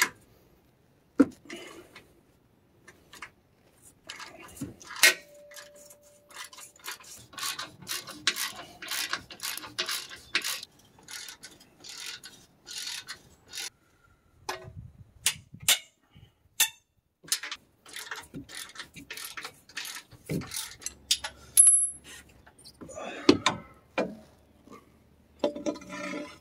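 Hand ratchet clicking in quick runs as it spins the sway bar bushing bracket bolts loose, with scattered metallic knocks and a few louder clanks about two-thirds of the way in.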